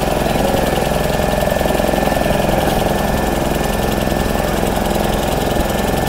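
Small fishing boat's outboard motor running steadily at close range, under way on the water.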